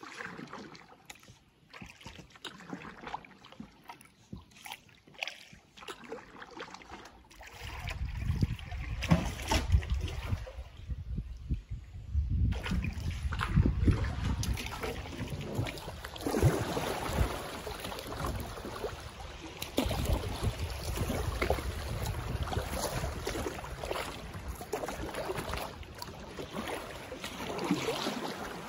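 Water splashing and trickling around a kayak on a shallow river, with paddle strokes. A louder, uneven low rumble comes in about a quarter of the way through and carries on under the water sounds.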